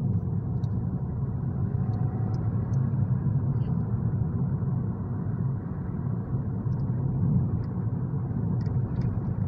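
Steady low rumble of engine and road noise heard inside the cabin of a 2013 Honda Civic 1.6 automatic, cruising at about 54 km/h.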